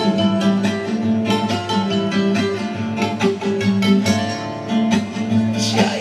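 Live band playing an instrumental passage of a huayno, with guitar prominent over a steady beat.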